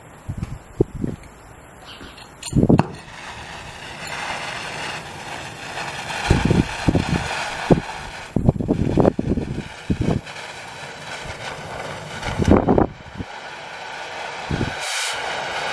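Oxy-acetylene cutting torch lit with a sharp pop a few seconds in, then its flame hissing steadily as the valves are set, with a few low buffeting thumps along the way. Near the end the hiss grows louder and brighter.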